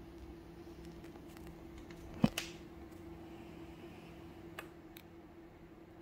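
Faint steady low hum, broken by one sharp click a little over two seconds in and two light ticks near the end.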